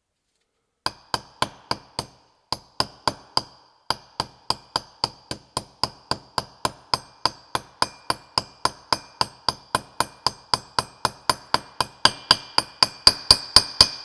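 Hammer tapping a wheel bearing into its hub through an old bearing used as a drift: a steady run of ringing metal-on-metal strikes, about three a second, with a couple of short pauses. Near the end the blows get louder and the ring turns higher and brighter: the change in note that tells the bearing has seated.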